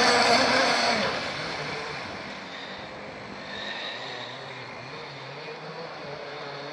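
Blackjack 55 petrol RC speedboat's two-stroke engine running flat out: loud as the boat passes close, fading over a second or two as it runs off across the lake, then a faint, steady engine drone that grows a little louder near the end.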